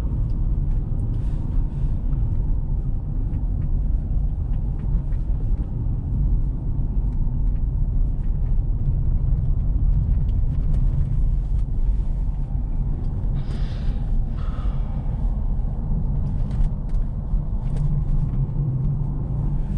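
Car driving on a snowy road, heard from inside the cabin: a steady low rumble of engine and tyres, with faint ticks and one short higher-pitched sound about two-thirds of the way through.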